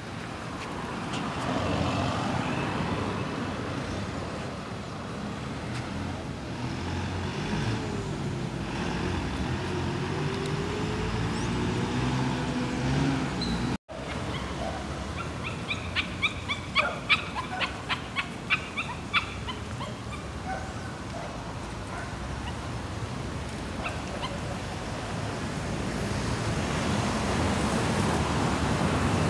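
City street traffic, with vehicles passing and one engine rising in pitch toward the middle. Past the middle comes a quick rattle of about a dozen sharp notes over some four seconds.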